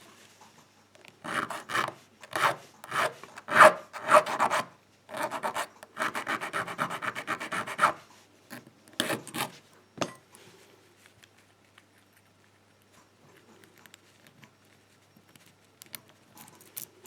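Hand file rasping back and forth on a metal key blank, cutting a key: a series of separate strokes, then a quicker run of short strokes, with the last few strokes about ten seconds in.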